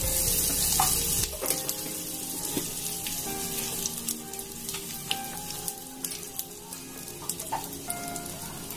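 Cumin seeds and asafoetida sizzling in hot mustard oil in a kadhai. There is a loud hiss for about the first second and a half as the spice goes in, then it settles to a steady sizzle with scattered crackles and pops.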